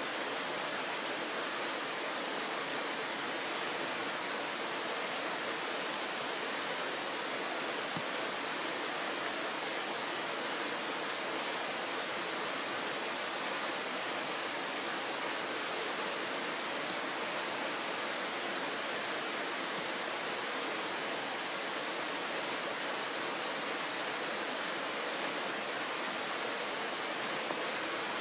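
Shallow, stony mountain stream rushing steadily over rocks and a small riffle, with one brief click about eight seconds in.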